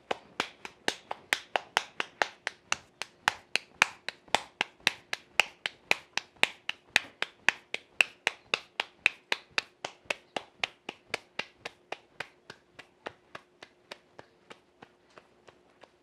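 Hands patting out a corn masa tortilla, the dough slapped quickly from palm to palm at about four pats a second. The pats grow softer over the last few seconds.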